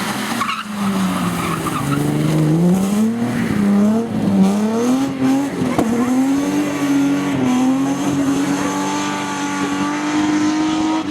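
BMW E30 rally car's engine being driven hard. Its pitch falls and rises several times as the throttle comes on and off through a corner, then holds and slowly climbs from about halfway through.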